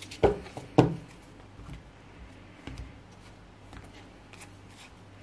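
A deck of oracle cards being handled by hand: two soft thumps of the deck, the second louder, within the first second, then only faint light card and hand noises.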